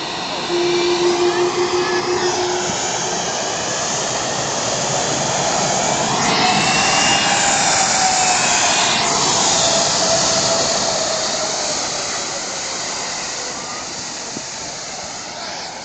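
Jet engines of a US Airways Boeing 757 taxiing and turning on the runway: a loud, steady rush of jet noise that swells in the middle and eases toward the end. A brief steady hum sounds about half a second in, and a whine slowly falls in pitch in the middle.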